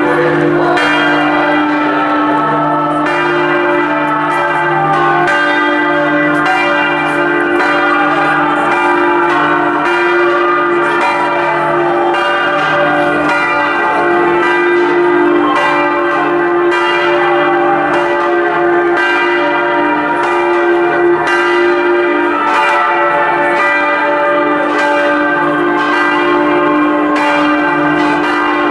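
Several church bells in a belfry ringing together in a festive peal. A low, humming bell sounds about once a second under quick, overlapping strokes of smaller bells.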